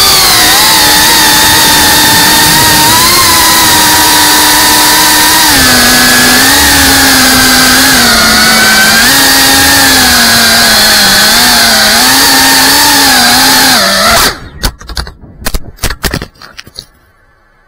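FPV racing quadcopter's motors and propellers heard through its onboard camera: a loud buzzing whine that rises and falls with the throttle. About fourteen seconds in it cuts off abruptly as the quad crashes, followed by a couple of seconds of scattered knocks and crackles as it comes to rest.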